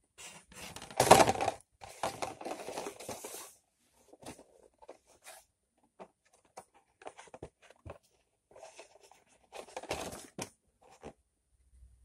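Cardboard model-kit boxes being handled and shuffled: irregular bursts of rustling and scraping with small knocks. The loudest comes about a second in, and another burst near the ten-second mark.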